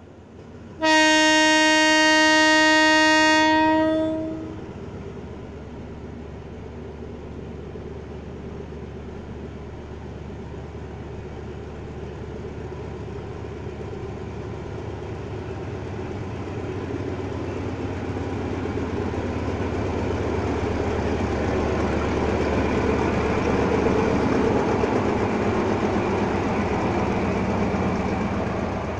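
A diesel locomotive sounds one long horn blast of about three seconds. Then the rumble of its engine and the running noise of the train grow steadily louder as the locomotive and coaches draw alongside, loudest near the end.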